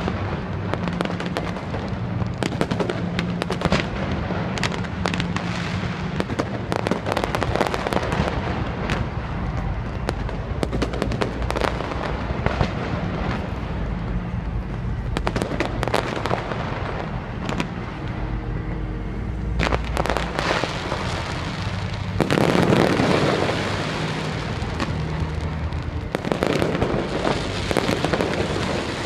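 Aerial fireworks display: a continuous run of bangs and crackles, with a louder, denser barrage about three quarters of the way through.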